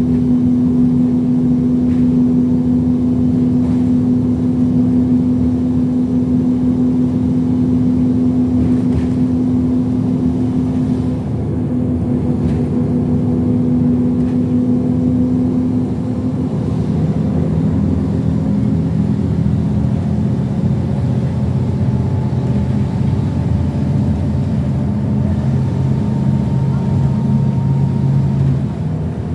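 City bus driving along, heard from inside the cabin: a steady engine and road drone whose main hum drops to a lower pitch a little past halfway.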